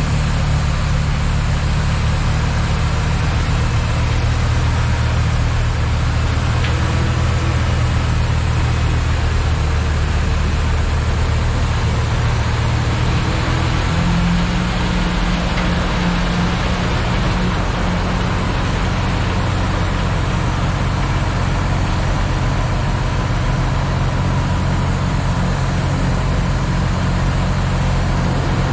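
Heavy diesel engines of dump trucks and a loader running a snowblower, a steady low drone under a continuous rushing noise. The engine note shifts about halfway through.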